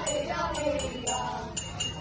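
Music: a pitched melody, sung or played, over a regular high jingling tick a few times a second.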